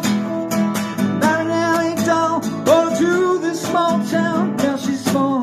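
Acoustic guitar in open tuning played bottleneck slide in a blues style, picked in a steady rhythm, with notes sliding up to pitch.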